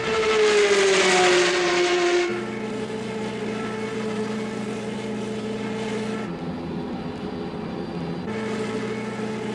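Cartoon race-car engine sound effects. A loud car pass falls in pitch over the first two seconds, then a steady engine drone follows, briefly duller about two-thirds of the way in.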